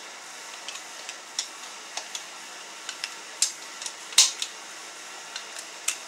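Scattered sharp clicks from a torque wrench tightening the main bearing cap bolts on an engine block to 30 ft-lb. The loudest click comes about four seconds in.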